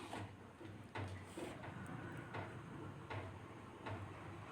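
Kollu rasam coming to a boil in a pot, with faint irregular pops from bursting bubbles and foam over a low steady hum.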